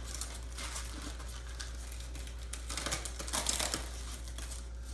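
Plastic packing bag crinkling and rustling in irregular bursts as hands unwrap a small statue piece, busiest about three seconds in.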